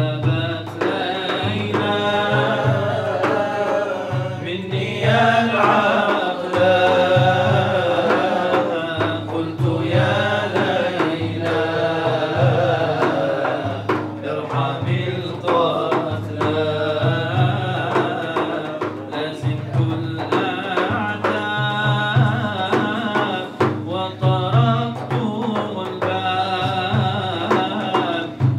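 A man singing an Arabic nasheed into a microphone in long, wavering held notes, over a steady hand-drum beat.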